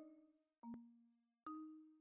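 Background music: a slow tune of single struck notes, each ringing and then fading. A new note sounds about half a second in and another about a second and a half in.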